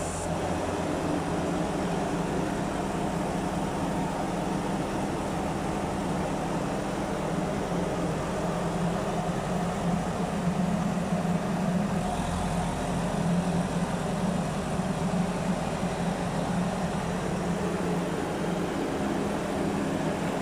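Kaiser S2-4 walking excavator's diesel engine running steadily under hydraulic load as the machine lifts and steps its wheeled legs, a little louder in the middle stretch.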